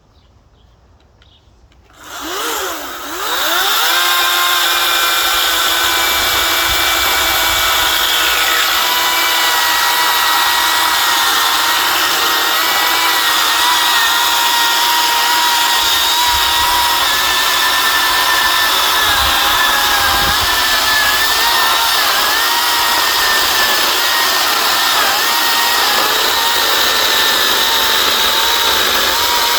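Hart 14-inch 40-volt cordless electric chainsaw spinning up about two seconds in with a rising whine, then running steadily as it cuts through a tree branch, its whine wavering and dipping slightly in pitch under the load of the cut.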